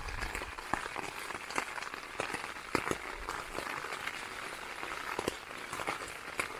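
Rain falling on a tent fly, heard from inside the tent: a steady hiss with irregular sharp ticks of drops striking the fabric.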